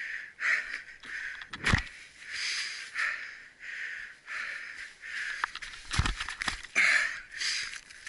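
A person breathing hard from exertion, quick heavy breaths about every half-second to second, with a couple of sharp thumps about two and six seconds in.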